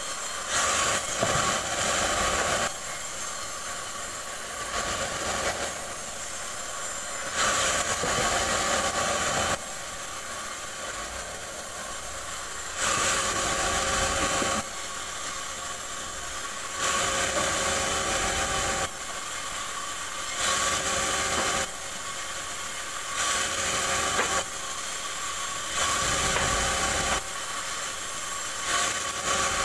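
Band sawmill running while its blade cuts lengthwise through a rubberwood log. The cutting noise swells about eight times, each for a second or two, over the machine's steady whine.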